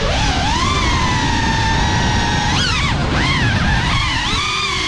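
GEPRC Cinelog35 ducted cinewhoop FPV drone's brushless motors whining over a steady rush of prop wash. The pitch holds, then swings up and down quickly about halfway through and wavers again near the end as the throttle changes.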